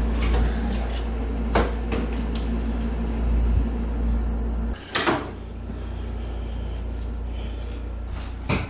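Scattered clicks and knocks of tools and engine parts being handled, over a steady low hum that cuts off abruptly about halfway through. Two louder knocks follow, one just after the hum stops and one near the end.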